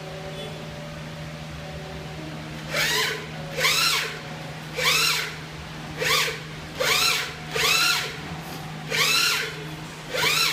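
Gantry motors of a small cement 3D printer whining in eight short bursts as the print head moves, each rising then falling in pitch, over a steady low hum from the machine.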